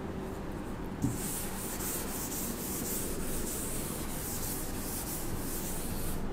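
Chalk being wiped off a chalkboard with an eraser, in quick back-and-forth rubbing strokes. It starts with a light knock about a second in and stops just before the end.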